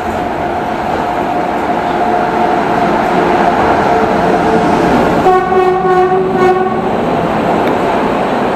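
Passenger train pulling in behind an electric locomotive, wheels rumbling steadily on the rails; about five seconds in the locomotive's horn sounds for about a second and a half, with a short break in the middle.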